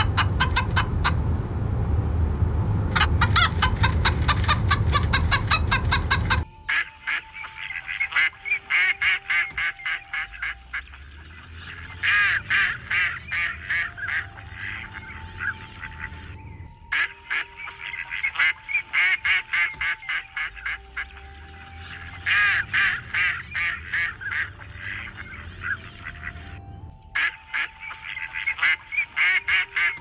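Geese and ducks calling in rapid runs of honks and quacks. For about the first six seconds the calls sit over a loud low rumble; after that they come in bursts a few seconds apart.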